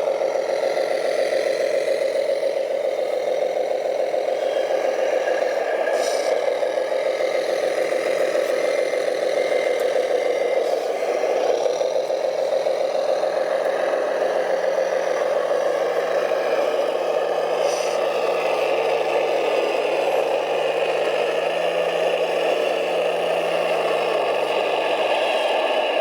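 Electric drive motors and gearboxes of radio-controlled trucks whining steadily, with a low tone that steps up and down in pitch from about twelve seconds in, and some rattling.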